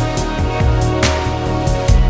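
Background music: held notes over a low bass line, with a bright accent about halfway through.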